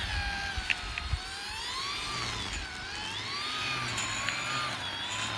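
Battery-powered string trimmer cutting grass, its motor whine rising and falling in pitch every second or two as the line meets the grass. A couple of sharp ticks sound in the first second or so.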